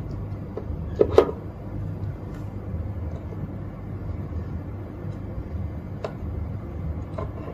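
Steady low hum with a few short clicks and taps, the loudest pair about a second in. The clicks come as multimeter test probes are put to the sockets of a breakout box.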